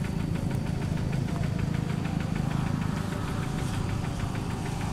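Walk-behind two-wheel hand tractor's single-cylinder diesel engine running steadily, with a rapid, even knock of its firing strokes over a low hum.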